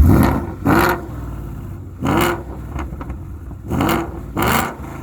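Ford 5.0 Coyote V8 with long-tube headers revved in five short throttle blips, each a quick rise in pitch, idling between them.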